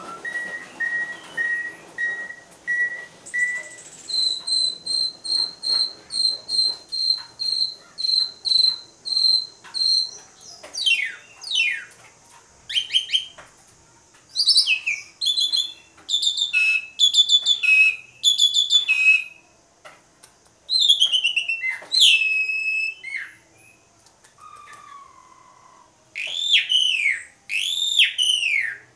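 Javan pied starling (jalak suren) singing loudly and at length. It opens with a run of evenly repeated whistled notes, moves to a higher run of repeated notes, then breaks into quick falling whistles and harsh, chattering mixed phrases.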